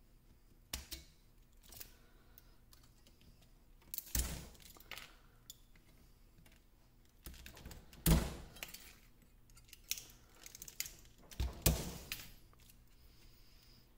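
Pliers gripping, twisting and tearing spot-welded nickel strips off the 18650 cells of an ebike battery pack: irregular metallic snaps, clicks and scrapes as the welds give. The loudest snaps come about a third of the way in, in the middle, and near the end.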